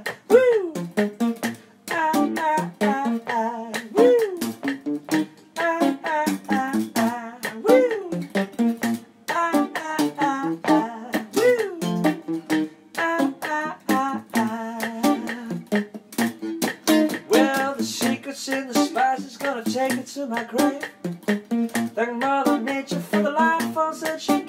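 Guitar music: plucked strings playing a busy run of notes, with a short rising-and-falling slid note about every four seconds in the first half.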